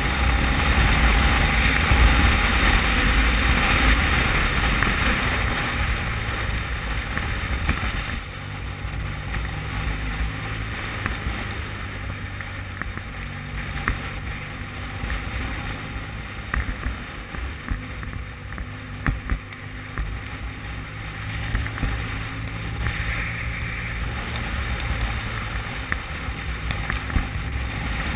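Motorcycle riding at road speed: a steady engine drone under wind rushing over the camera microphone. It is loudest for the first several seconds and eases off about eight seconds in.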